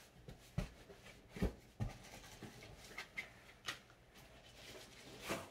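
About half a dozen short, light knocks and rustles of boxed kitchen products and paper packaging being handled and unpacked, the loudest just before the end.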